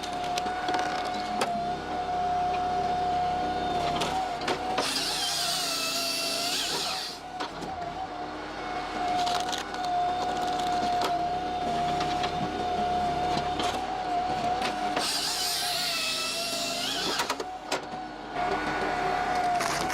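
Firewood processor (saw-splitter) running with a steady hydraulic whine over its engine. Twice, about five and about fifteen seconds in, a louder work cycle lasting about two seconds adds a hissing whine that dips and then rises in pitch.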